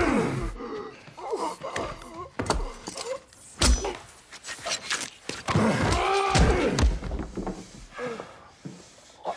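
Hand-to-hand fight: a series of heavy thuds and slams of bodies striking walls and furniture, the loudest right at the start and about four seconds in, with a man's strained grunts between the blows.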